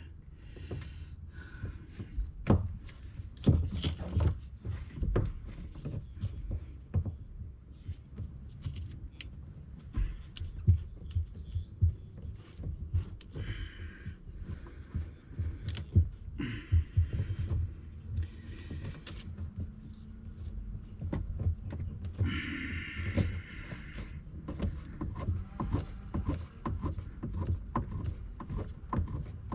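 Handling noise of fitting a boat's fuel line: scattered knocks, clicks and taps of hands and parts, with a few short stretches of rustling, over a low steady hum.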